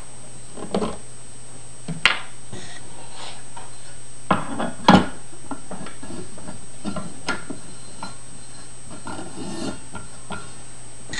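Hand handling a record on the turntable of a 1940 Silvertone 5849 record player: scattered knocks and clicks, loudest about five seconds in, over a steady low hum.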